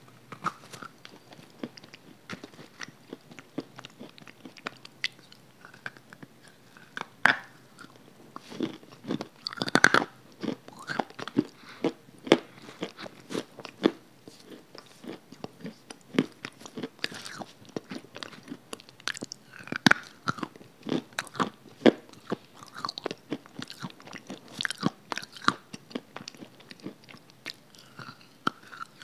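Close-miked biting and crunchy chewing of a dry, crumbly grey block, many irregular sharp crackles and crunches, with a few louder bites about ten and twenty seconds in.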